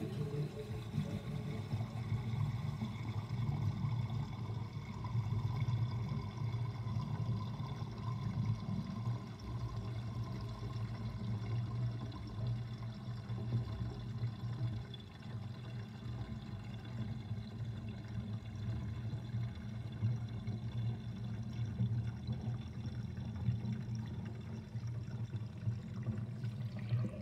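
Kitchen sink draining through its drain basket with the overflow covered, water gurgling in the drain in a long, continuous, uneven low gurgle.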